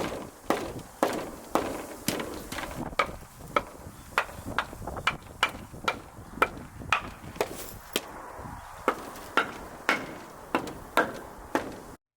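Sharp wooden knocks, about two a second, each with a short ring.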